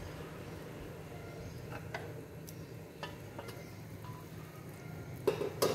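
Light clinks of an aluminium pot lid being lifted off a simmering soup pot, followed by two louder metallic clanks near the end as the lid is set down on another pot's lid. A steady low hum runs underneath.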